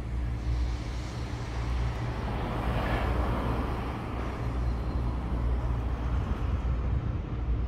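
Outdoor road traffic noise with a steady low rumble, swelling as a vehicle passes about three seconds in.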